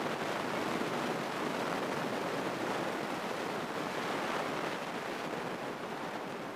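Steady rushing cabin noise of a light single-engine airplane in cruising flight: engine and airflow blend into an even hiss with no distinct engine tone.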